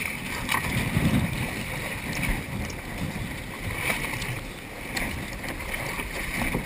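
Water sloshing between a boat's hull and kayaks, with a muffled low rumble of wind and water on the microphone. A few light knocks come as someone climbs over the gunwale down into a sea kayak.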